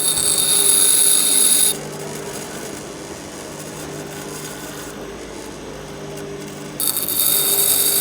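Drill bit pressed against a spinning pedestal grinder wheel, a hissing grind that lasts under two seconds at the start and comes again near the end, over the grinder motor's steady hum.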